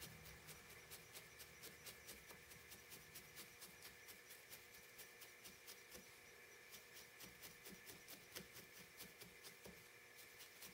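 Faint, rhythmic pokes of a felting needle stabbing into wool, about three to four strokes a second.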